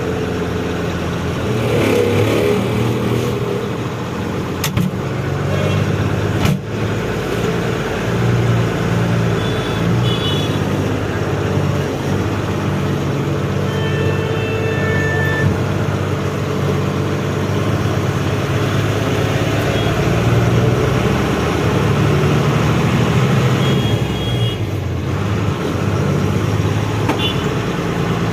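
Truck engine running steadily as the truck drives, with a sharp click about six seconds in and a few short high-pitched tones now and then.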